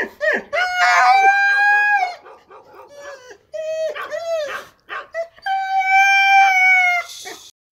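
Siberian husky howling and yowling: a string of wavering calls, two of them long and drawn out for about a second and a half each, with shorter ones between.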